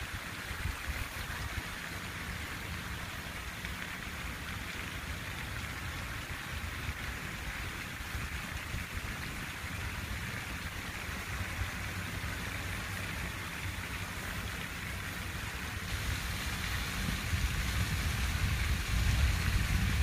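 Water fountain splashing, a steady patter of falling water. A low rumble underneath grows louder over the last few seconds.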